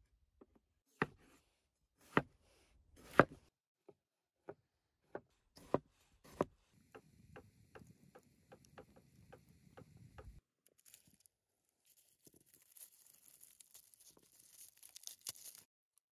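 A kitchen knife striking a wooden cutting board in several sharp, separate chops. Then a wood fire crackling, with a low rumble under about three crackles a second. Near the end comes a soft, dry rustling and scraping as a vegetable is cut with a knife in the hand.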